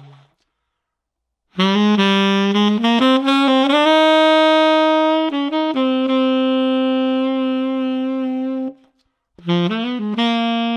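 Tenor saxophone played through a gold-plated metal Theo Wanne Lakshmi mouthpiece: after a short silence, a jazz phrase of quick notes settling into long held notes, then a brief break and a new phrase near the end.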